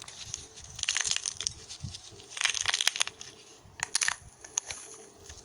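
Crackling, crushing sounds in three clusters of rapid sharp crackles, about a second, two and a half seconds and four seconds in, with lighter crackling between them.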